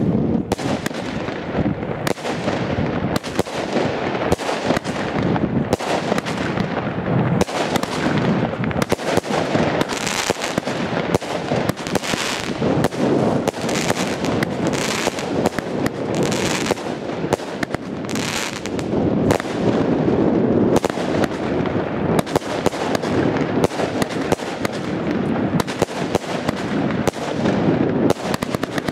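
Hestia Super Effect 36-shot consumer firework battery (cake) firing: launch thumps and bursts follow one another quickly, with no break. Through the middle there are stretches of hissing crackle from crackling stars.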